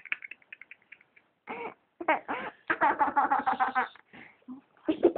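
A person laughing in irregular bursts, a fading run of quick breathy pulses and then giggling with wavering pitch, the longest burst about three seconds in.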